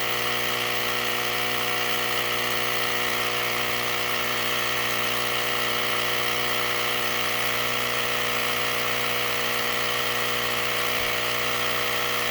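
Portable battery-powered tire inflator running steadily with a constant buzzing hum, pumping up a flat four-wheeler tire that is still well short of its 20 psi setting.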